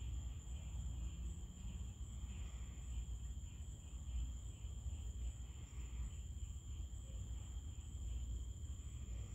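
Steady high-pitched chorus of crickets trilling at night, at two pitches, over a low rumble.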